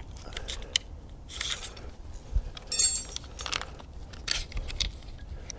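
Metal clicks and rattles from an AK rifle's lower handguard retainer latch being flipped and the handguard worked loose, with one sharp ringing metallic click about three seconds in.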